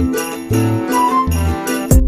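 Upbeat channel-intro music with a repeating bass line and bright bell-like tones; it cuts off just before the end.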